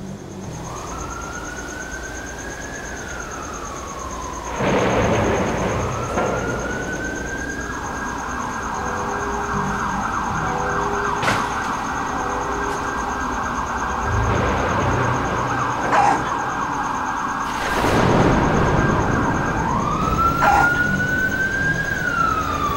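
Emergency-vehicle siren wailing: its pitch rises and falls, then rises and holds high for about ten seconds, then rises and falls again near the end. Two bursts of rushing noise come in, about four and eighteen seconds in.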